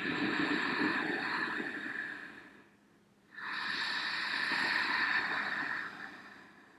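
Ujjayi breath: a woman breathing slowly through sealed lips with the back of the throat slightly constricted, giving a steady throaty hiss. Two long breaths of about three seconds each, an inhale and an exhale, with a short pause between.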